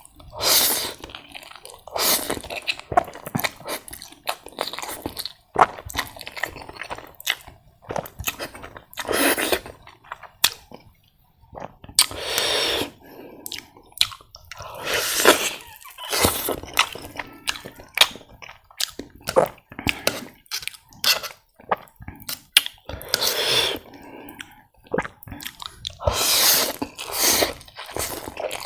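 Close-miked chewing of instant ramen noodles, with irregular wet mouth sounds and a longer noisy swell every few seconds.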